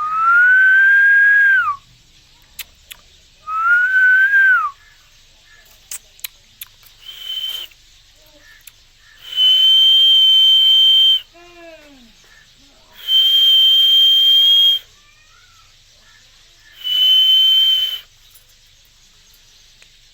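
Six loud whistles: the first two rise slowly in pitch and drop away at the end, and the last four are held on one high, steady note. Short falling chirps come between them.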